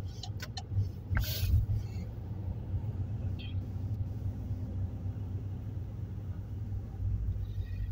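Steady low rumble of a car driving, heard from inside the cabin, with a brief hiss about a second and a half in and a few light clicks near the start.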